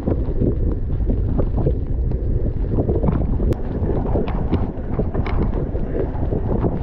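Mountain bike ridden fast along wet dirt singletrack: steady wind noise and rumble on the action camera's microphone, with frequent clicks and rattles from the bike jolting over the rough ground.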